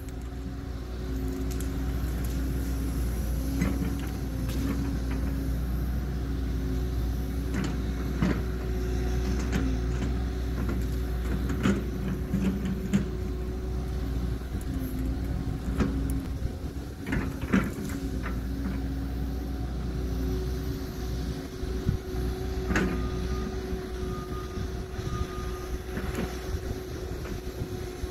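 Caterpillar 314 excavator's diesel engine running steadily as it works, with scattered sharp cracks and snaps of wood and brush as trees are pushed over.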